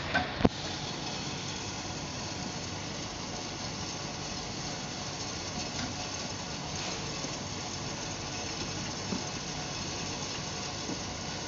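Heat-shrink tunnel running with a steady, even hiss of air from its blower. A sharp click sounds about half a second in.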